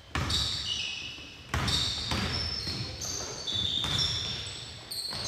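A basketball bouncing on a hardwood gym court, a string of sudden thuds about half a second to a second apart, with short high-pitched sneaker squeaks over them.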